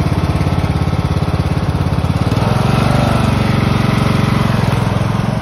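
Riding lawn tractor engine running close by, with steady firing pulses; about two seconds in, the engine note grows fuller and louder.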